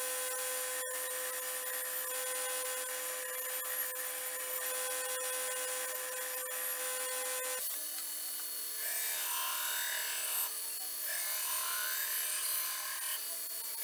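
Belt grinder running steadily while a steel wakizashi blade is ground against the belt. About halfway through, the hum shifts slightly, and a scraping sound rises and falls repeatedly as the blade is worked along the belt.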